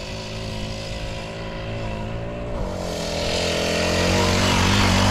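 Small 40cc four-stroke single-cylinder mini bike engine running at a steady pitch. About halfway through the pitch dips briefly, then it picks up and grows louder, loudest near the end.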